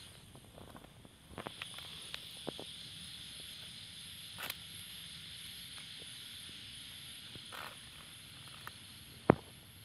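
A steady high chirring of night insects, with scattered rustles and snaps of leaves and twigs being pushed aside. There is a sharp crack or knock near the end.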